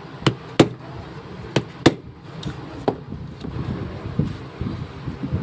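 Hand tools knocking on a jammed ignition lock cylinder being worked open: five sharp knocks in the first three seconds, in irregular pairs, then softer scraping and handling noise.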